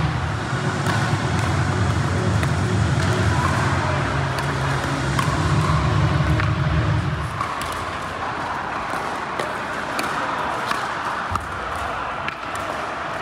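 Sharp, irregular pops of pickleball paddles striking the plastic ball during a rally, over the noise of a large hall. A loud low hum runs under the first seven seconds or so and then cuts off.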